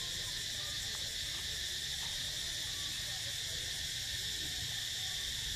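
Steady high-pitched drone of an insect chorus, unchanging throughout, over a low rumble.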